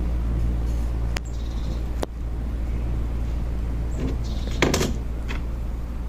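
A steady low hum, with two sharp clicks in the first half and a short, louder knock about three-quarters of the way through.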